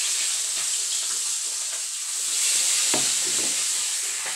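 Food frying in hot oil in a pan: a steady, loud sizzle.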